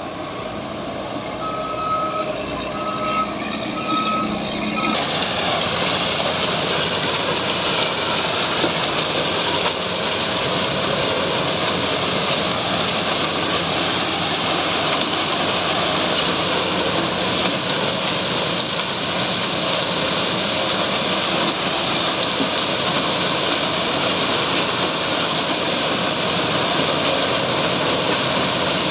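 Case IH sugarcane harvester running under load, cutting and chopping cane and sending it up the elevator into the haul trailer: a loud, steady machine noise with a strong hiss. A reversing alarm beeps three times in the first few seconds, and about five seconds in the noise grows louder and hissier.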